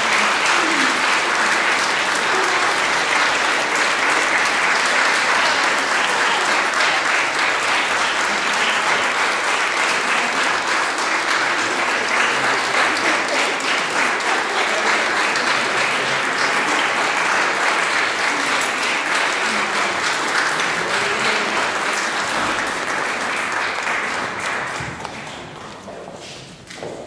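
Audience applauding steadily, dying away about a second before the end.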